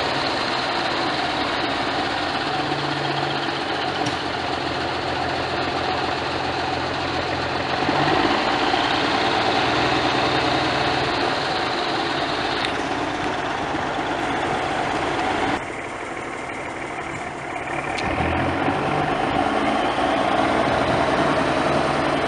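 1981 Peterbilt dump truck's diesel engine running steadily. Its note shifts about eight seconds in, drops in level for a couple of seconds around sixteen seconds, then picks up again as the dump bed starts to lift.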